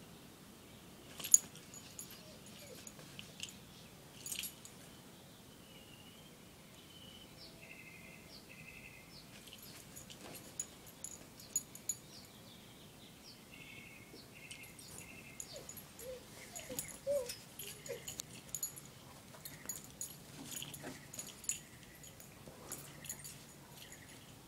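Scattered sharp clicks and rustles, the loudest about a second in, with small birds chirping now and then and a few short high whines from the dog past the middle.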